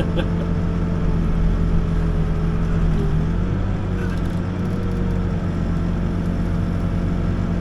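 Backhoe diesel engine running steadily, heard from the operator's seat, its pitch shifting slightly upward about three seconds in.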